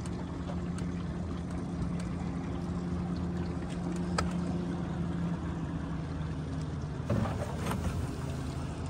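Outboard motor of a small aluminium jon boat running at low throttle, a steady hum, as the boat is power-loaded up onto its trailer; the pitch drops slightly about six seconds in. A knock about seven seconds in.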